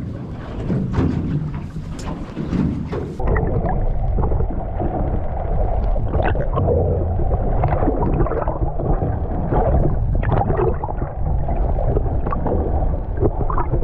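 Wind and sea noise on an open boat with a few sharp clicks. About three seconds in it cuts to the muffled, steady rush and gurgle of water heard through an underwater camera's housing.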